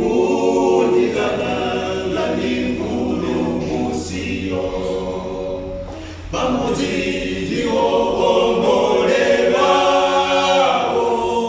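Male a cappella group of about seven voices singing a gospel hymn in close harmony, with a short break between phrases about six seconds in.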